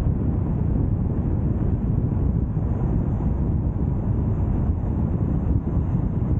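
Steady low wind rumble buffeting the microphone of a camera mounted on the outside of a car moving at road speed, mixed with the car's road noise.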